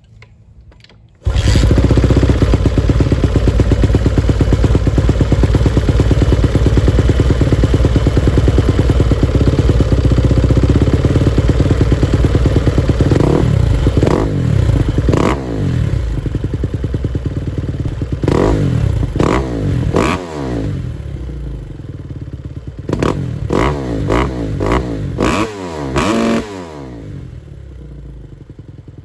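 2018 Kawasaki KX250F single-cylinder four-stroke dirt-bike engine cutting in suddenly about a second in and running steadily. It is then revved in several quick blips from about halfway, and drops back to a quieter idle near the end.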